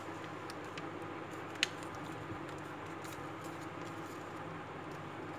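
Faint rustling and small ticks of a sheet of paper being folded by hand on a table, over a steady low room hum, with one sharp click about a second and a half in.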